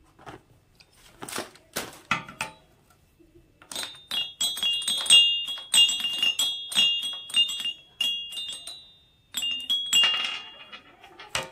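A small toy xylophone's metal bars struck rapidly with a ball-headed mallet, giving quick runs of high, ringing notes. A few knocks come before the playing starts, and there is a short clatter near the end.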